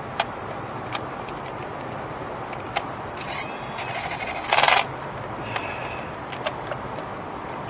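Hand tools on spark plugs: scattered metallic clinks of a socket and extension, and a run of rapid ratchet clicks about three seconds in, followed by a short, loud rasping burst about four and a half seconds in.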